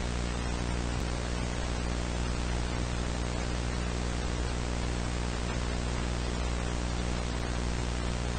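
Steady static hiss with a low buzzing hum underneath, unchanging throughout.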